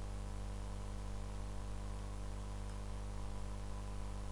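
Steady electrical mains hum with a layer of hiss, background noise of the narration's recording setup, unchanging throughout.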